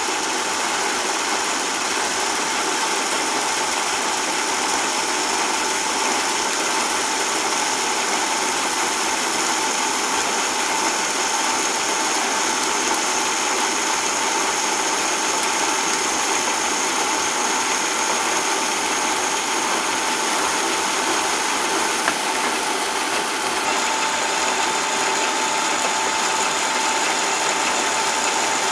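Lathe running steadily while its cutting tool turns down an acetal plastic rod, a steady machine whine over an even hiss.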